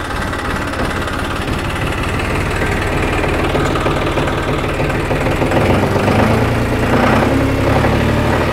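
John Deere 5065E tractor's three-cylinder diesel engine idling steadily just after a start, purring, with a little more body in the low end after about the middle.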